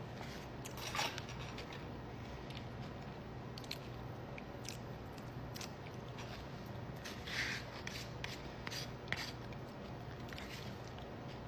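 Close-up crunching and chewing of Doritos nachos, with scattered crisp crackles and two louder crunches, one about a second in and one about seven seconds in.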